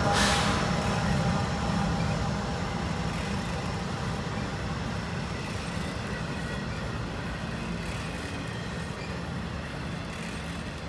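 Norfolk Southern freight train rolling past at speed. The wheels of its empty intermodal well cars rumble on the rails, and the diesel locomotives' engine sound fades as they move away. A short burst of noise sounds right at the start, and the whole sound grows steadily quieter.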